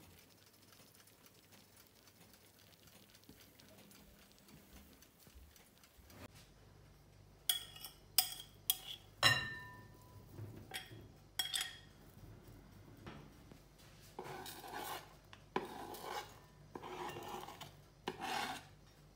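Sharp clinks of a ceramic bowl knocking against a glass mixing bowl as ground pork is tipped and pushed into it. A few seconds later come four scraping strokes as chopped onion and garlic are slid off a cutting board into the bowl.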